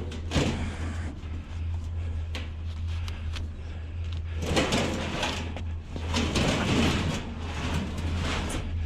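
Scrap being handled at a van: scraping and rattling, with scattered knocks, loudest around five and seven seconds in, over a steady low hum.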